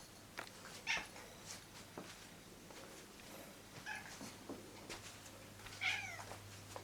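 A cat meowing three times: a short call about a second in, another around four seconds, and a longer bending one near the end.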